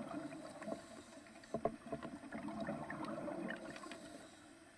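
Faint underwater ambience picked up by a scuba diver's camera: a low steady murmur with scattered small clicks, fading near the end.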